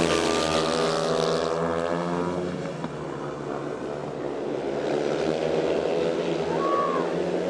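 Speedway motorcycles' 500 cc single-cylinder methanol engines racing. Their pitch falls over the first two seconds, then they run on steadily.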